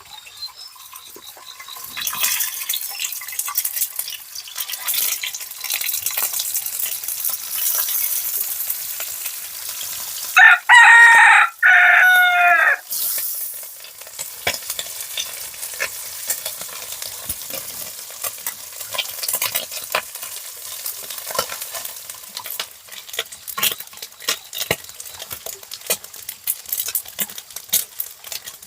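A rooster crows once, loudly, about ten seconds in. Under it, food sizzles and crackles in a pan with scattered stirring clicks, the hiss easing off after the crow.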